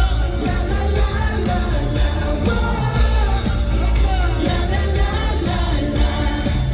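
Boy group singing live over pop-rock music, with a heavy bass and a steady drum beat.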